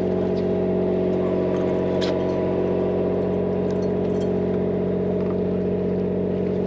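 Charter fishing boat's engine running steadily at a constant speed, a deep even hum.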